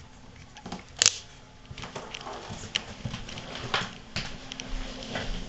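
A plastic cover clicked onto a small submersible pond pump about a second in, followed by scattered light clicks and rustling from handling.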